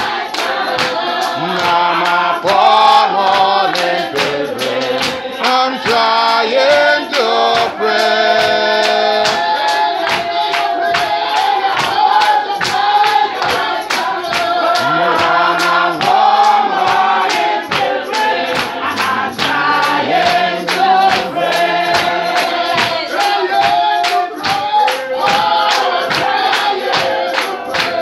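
Church congregation singing a gospel hymn together, over a steady rhythmic beat of sharp percussive strokes.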